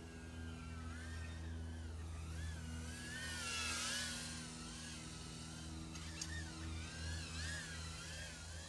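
Happymodel Mobula 6 tiny whoop's brushless motors whining, the pitch wavering up and down with the throttle over a steady low hum, with one sharp click about six seconds in.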